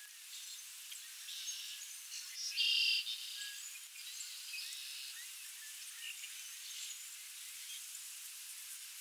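Small birds calling and chirping in the background over a steady hiss, with one louder call about three seconds in.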